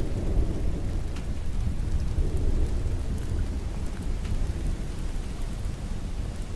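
Rolling thunder, a deep low rumble slowly fading away, over steady rain with scattered small ticks of drops.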